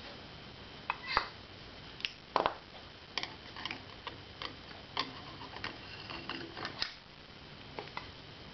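Clutch plates of a 1984 Harley-Davidson FXWG clinking and scraping as they are handled and fitted onto the clutch hub by hand: a series of irregular light metallic clicks.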